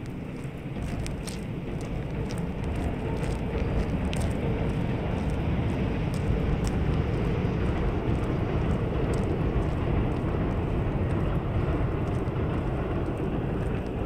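Steady low rumble of nearby road traffic that swells over the first few seconds and then holds, with a few faint clicks scattered through it.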